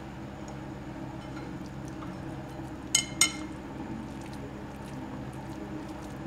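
Two quick clinks of dishware, about a quarter second apart, roughly three seconds in, over a steady low hum.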